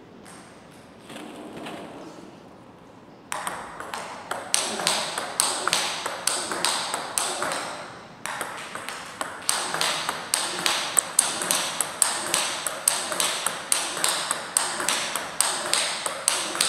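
Table tennis rally: a celluloid-type plastic ball hit back and forth, with quick alternating clicks of bat strikes and table bounces. The clicks start about three seconds in and break off briefly about eight seconds in before the rally resumes.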